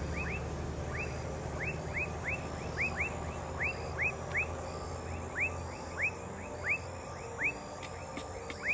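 An animal chirping: short upward-sweeping chirps, repeated about twice a second, over a low steady hum that fades out about halfway through.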